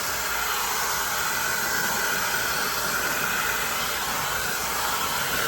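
MESCOMB 110,000 RPM hot air styler's hair dryer running steadily: an even rush of air over a constant high motor whine.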